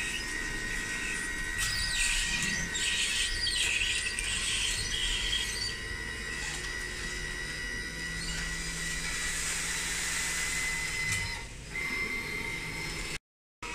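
Electric hydraulic pump of a radio-controlled tipper trailer whining steadily as it raises the tipper bed. Later on there is a hiss of gravel sliding out of the tilted bed.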